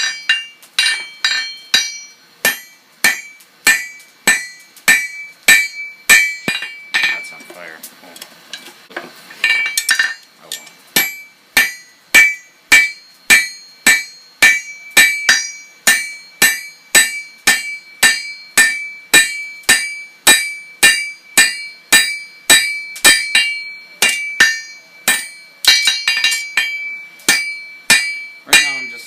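Hand hammer striking hot steel on an anvil to draw out the bar, steady blows about three a second, each with a bright ring. The hammering pauses briefly about eight seconds in.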